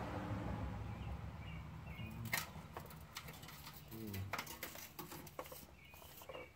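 Scattered clicks and light metal taps of hand tools and fittings as the rear brake line of a 1997 Ford Mustang is worked on from underneath, with a few faint bird chirps.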